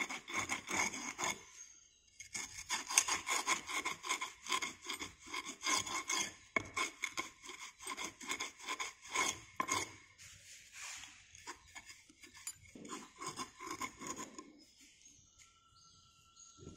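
A strike-off bar scraped back and forth across the top of a moulding box, levelling off the rammed moulding sand: many quick, repeated scraping strokes, breaking off briefly about two seconds in and again about eleven seconds in, then dying away near the end.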